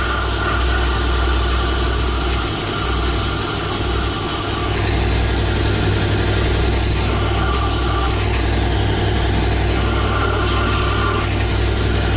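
Electric grinder running steadily while grinding a steel wedge to shape, with the grinding hiss coming and going as the metal is worked against it.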